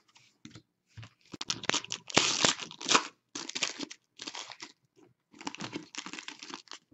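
Foil trading-card pack being torn open and its wrapper crinkled, in a run of short ripping and crackling bursts, loudest two to three seconds in.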